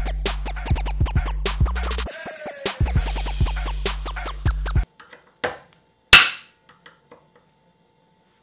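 Hip-hop outro song with turntable scratching over a steady beat, cutting off abruptly about five seconds in. A few faint clicks and two knocks follow, the second one loud and sharp.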